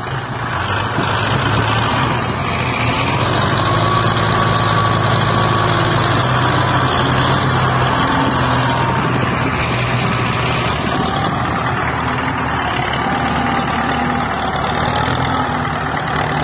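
Belarus tractor diesel engine running hard under a heavy load, a steady low engine note that climbs a little in pitch in the first few seconds and then holds.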